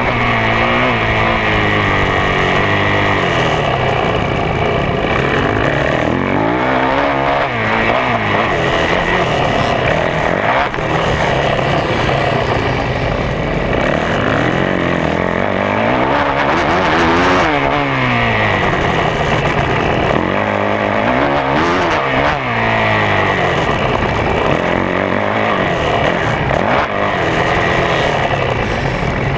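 2011 Yamaha YZ450F's single-cylinder four-stroke engine under race load, its pitch climbing and dropping again and again as the throttle is opened and rolled off through the turns.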